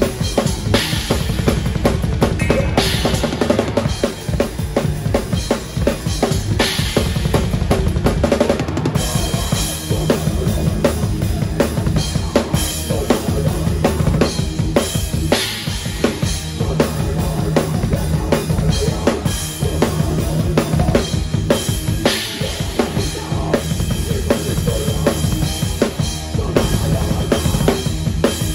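Live band playing heavy music, heard from right behind the drum kit: very rapid bass drum strokes and snare hits, with a crash cymbal every few seconds over the guitar.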